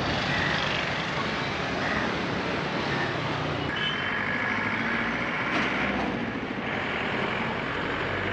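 Steady city traffic noise from motorcycles and cars passing on a road bridge, with a couple of faint high steady tones over it about four seconds in and again near the end.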